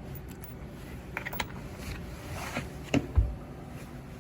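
Light clicks and knocks of hands handling the plywood piece, screws and tools at the counter, with a low thump a little after three seconds in.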